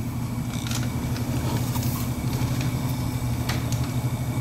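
A steady low mechanical hum with a few faint light clicks, likely from the pistol being handled.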